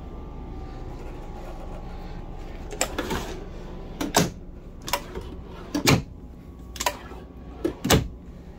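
Kitchen cabinet drawers in a motorhome being pulled open and pushed shut one after another. From about three seconds in there is a run of sharp clunks and knocks, over a steady low hum.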